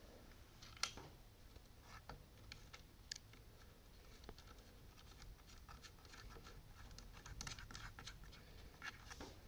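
Faint clicks and light scraping of fingers threading a nut by hand onto a push mower's plastic air filter housing, a scatter of small ticks with one sharper click about a second in.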